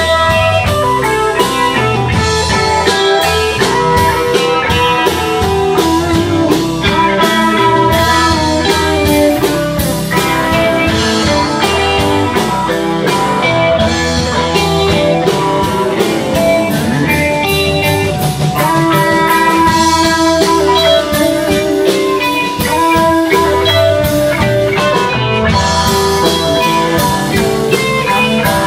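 Live blues-rock band playing: two electric guitars, electric bass and drum kit, at a steady beat.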